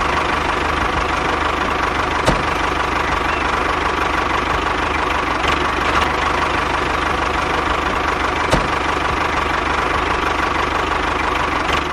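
A small motor running steadily with a rapid buzzing hum, cutting in and out abruptly. Two sharp clicks come through it, one about two seconds in and one later on.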